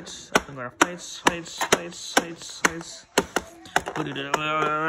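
Sharp, evenly spaced taps or clicks, about two a second, with a voice briefly sounding near the end.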